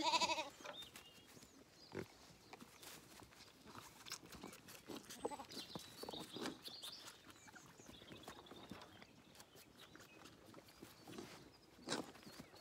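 A Zwartbles lamb bleats once, loudly, right at the start. After that come quieter sounds of lambs jostling and feeding at milk bottles, with scattered clicks and knocks.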